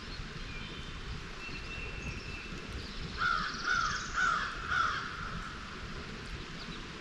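A crow cawing about four times in quick succession a few seconds in. Thin high bird whistles come before it, over a steady background hiss.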